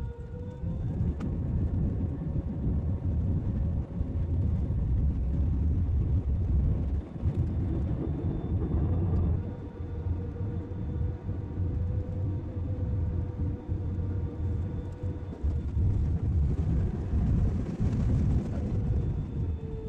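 Jet airliner engines heard from inside the cabin at a window seat over the wing: a steady deep rumble with a constant engine whine, the level shifting a few times.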